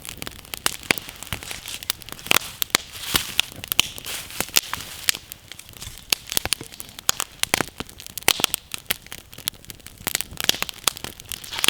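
Wood campfire burning, with a steady stream of irregular sharp crackles and pops over a faint hiss of flame.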